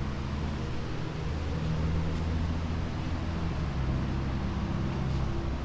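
A steady low hum over an even background noise.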